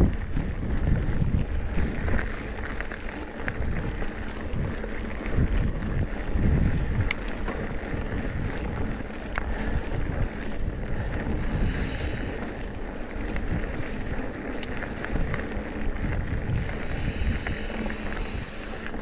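Riding a Trek Top Fuel mountain bike along dirt singletrack: wind buffets the action camera's microphone over tyre noise and the bike's occasional knocks and rattles. A brief high buzz comes twice, near the middle and toward the end.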